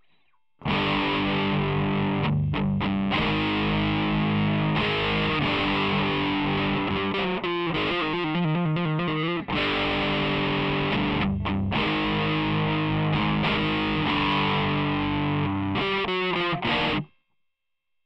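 Distorted electric guitar played through a Boss ME-20 multi-effects pedal with its overdrive/distortion section switched on. It starts about half a second in and cuts off abruptly about a second before the end.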